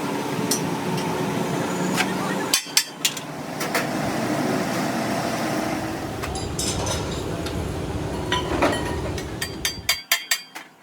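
Hammer blows on metal during a truck trunnion shaft repair: a few sharp strikes about two and a half seconds in, a couple more later, and a quick run of strikes near the end, over steady workshop noise.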